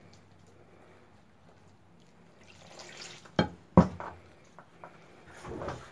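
Water poured from a plastic bottle into a glass bowl of flour while a hand mixes it into dough. Two sharp knocks a little past halfway are the loudest sounds, with a few lighter clicks after them.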